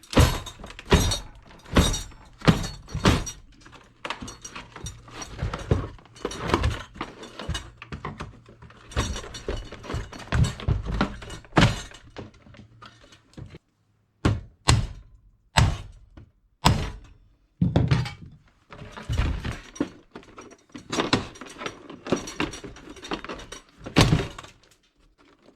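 Repeated, irregular knocks and cracking as a tool works into the plastic housing of an Easy-Bake Ultimate Oven to break it open. The strikes come in quick runs, with a brief pause about halfway through.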